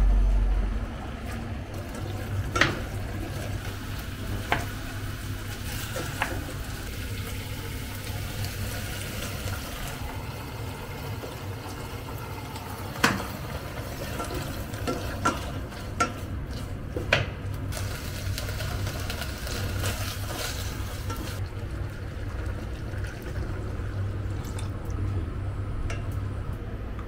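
Soup being cooked in a pot: stirring, with scattered sharp knocks and clinks of a utensil against the pot over a steady low hum.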